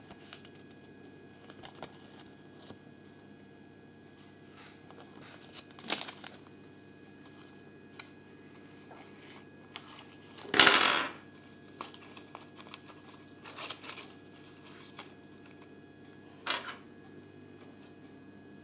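Small plastic Kinder Surprise toy pieces and their clear plastic wrapper being handled: scattered light clicks and short rustles, the loudest about ten and a half seconds in.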